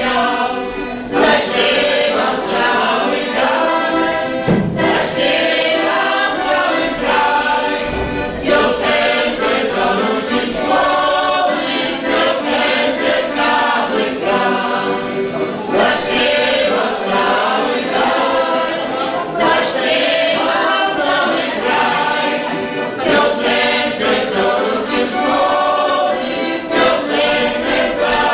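Polish folk ensemble singing a song in chorus, women's and men's voices together, accompanied by an accordion.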